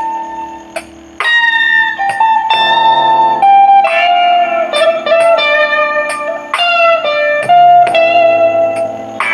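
Guitar playing a slow melody of single sustained notes, some bent or slid in pitch. Short ticks about twice a second keep time behind it.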